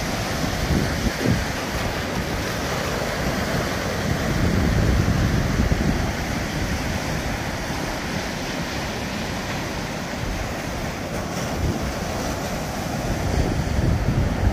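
Surf breaking and washing on a beach, a steady rush of waves, with wind buffeting the microphone in gusts.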